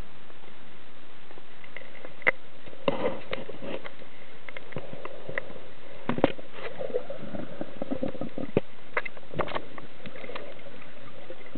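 Underwater camera recording: a steady hiss with scattered sharp clicks and knocks from about two seconds in, some in quick clusters, as the camera in its housing is moved and bumped through the water.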